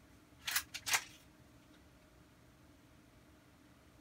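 Three quick, quiet clicks within half a second, starting about half a second in: a spring-powered Bear River 1911 steel BB pistol being handled between shots, typical of its slide being cocked.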